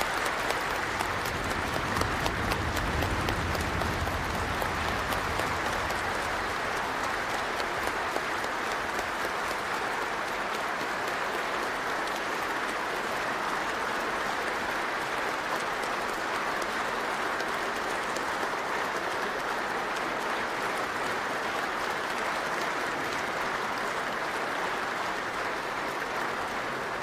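A large assembly applauding: many hands clapping in one long, even ovation, a little louder in the first few seconds. The ovation greets the announcement of a unanimous election result.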